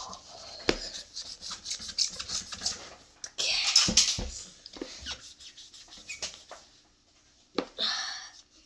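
Wet Magic Eraser (melamine foam sponge) rubbing hard against a plastic toy cowboy hat in short scrubbing strokes, with louder scuffs about halfway through and again near the end.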